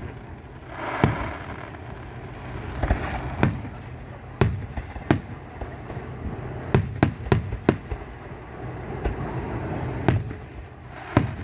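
Aerial fireworks bursting: about a dozen sharp bangs at irregular intervals, a quick run of several around the middle, with a spell of crackling about a second in and another near three seconds.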